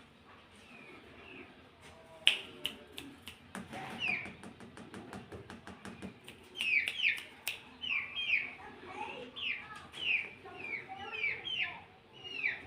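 Brahma chicks peeping: short falling peeps that come thick and fast from about six seconds in. Before them, a run of sharp clicks and taps, the loudest about two seconds in.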